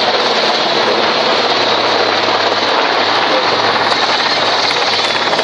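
Atlas Oryx utility helicopters hovering low: steady, loud rotor and turbine noise with no letup.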